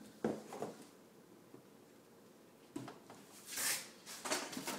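Two sharp clicks, then soft rustling and a few brief scuffing noises from hands at work; no motor is running.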